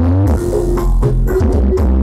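Loud electronic dance music with very heavy, steady bass, played through a carnival sound-horeg sound system. A synth note slides upward at the start, then a quick drum beat of about four hits a second comes in.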